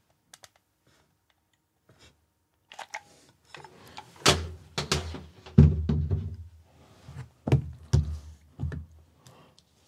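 Plastic-cased sealed lead-acid UPS battery blocks knocked and pressed together on a table: a string of dull thunks and knocks starting about three seconds in, after a few faint clicks.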